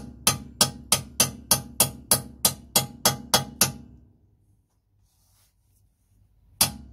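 Steady hammer blows, about four a second, from a rag-wrapped hammer driving a 17 mm impact socket onto a stripped, rounded bolt head on a rear suspension arm. The blows stop for a couple of seconds past the middle and start again near the end.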